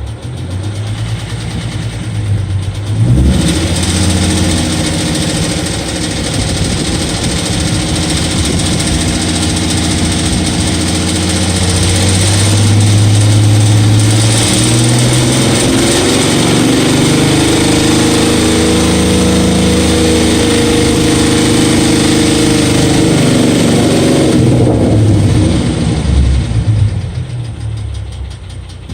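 2012 Ford Mustang's 3.7-litre V6 running. About three seconds in the engine speed comes up and is held raised, then drops back toward idle near the end. The engine is being recorded for a ticking noise whose cause the owner doesn't know.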